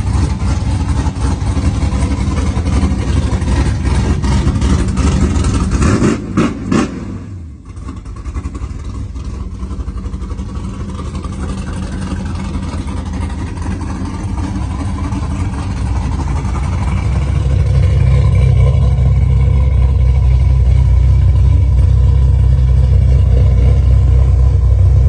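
Modified 2006 Pontiac GTO's iron-block 6.0 V8, fitted with headers, running at idle with a deep, steady rumble. Around six seconds in there is a brief louder, rougher stretch, then a sudden dip. From about seventeen seconds the low rumble is louder and deeper.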